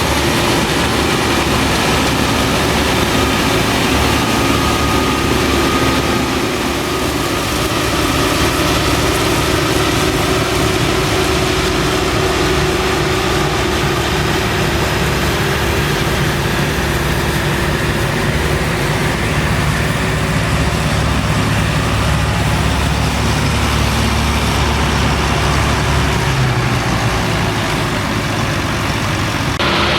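Claas Lexion 480 combine harvester running steadily while harvesting wheat: a continuous, deep engine drone with steady tones.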